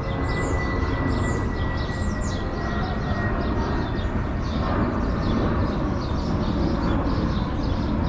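Small birds chirping repeatedly over a steady, loud low rumble; the chirps are thickest in the first few seconds.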